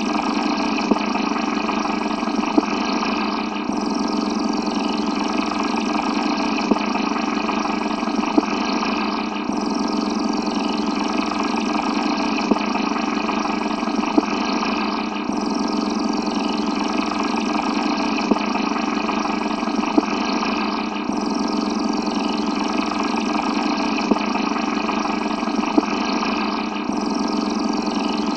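Steady, dense rumbling space-ambience drone, looping about every six seconds, with two sharp clicks and a short dip in each cycle.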